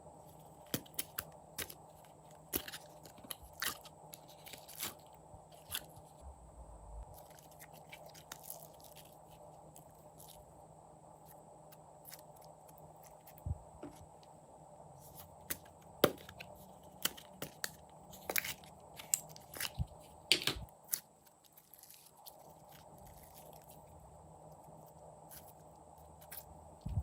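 Clear slime being squished and stretched by hand: irregular sticky clicks and small pops, a few louder ones past the middle, over a faint steady hum.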